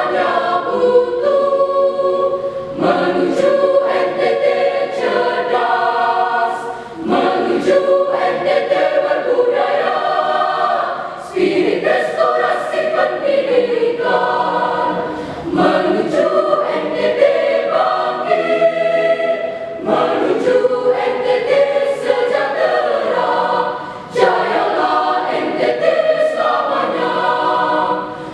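School choir singing in harmony, in sustained phrases with brief breaks between them.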